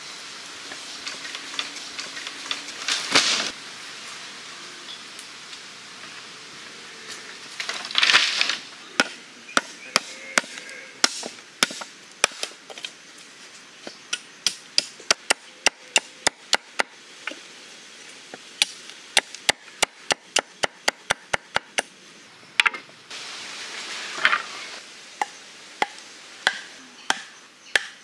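A blade chopping wooden sticks to points on a wooden chopping block: a long run of sharp, irregular chops, two or three a second, after two louder noisy bursts in the first eight seconds. Near the end come a few blows of a wooden club driving a stake into the ground.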